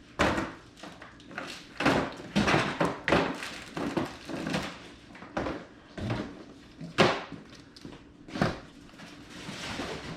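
Boxed toys and board games being pulled from a cardboard box and set down: a string of irregular thuds and cardboard rustles, a few louder knocks among them.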